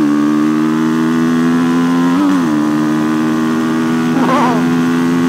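Suzuki DR-Z400SM single-cylinder four-stroke engine pulling hard at full throttle, its pitch climbing slowly, with a quick drop and recovery about two seconds in as it shifts up a gear.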